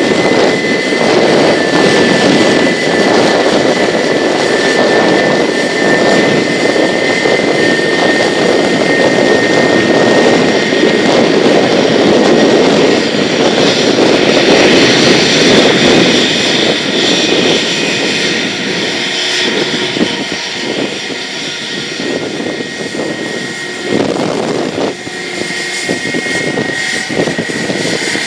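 Airbus A320's jet engines running at taxi power as the airliner rolls past: a steady rumbling roar with a thin high whine. The sound grows sharper about halfway through, then eases slightly toward the end.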